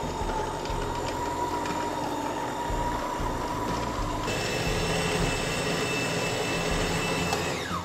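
Electric food processor motor running with its blade blending minced beef and onion, a steady whirring whine. About four seconds in the whine jumps higher, and near the end the motor is switched off and winds down in pitch.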